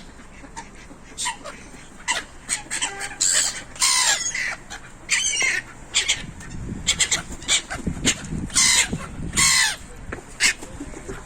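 Gulls calling over and over, a string of short harsh cries that each drop steeply in pitch, several birds overlapping. A low rushing noise runs under the calls from about six to ten seconds in.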